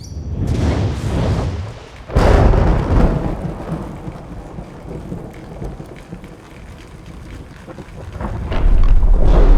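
Thunderstorm: thunder rumbling with rain. A sharp thunderclap comes about two seconds in and rolls on, and a deep rumble builds again near the end.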